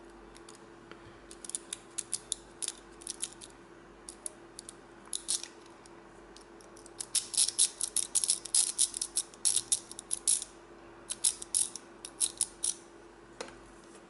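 Metal lock pick clicking and rattling against the pins inside a brass cutaway pin-tumbler lock cylinder: scattered runs of sharp clicks, thickest in the middle, over a faint steady hum.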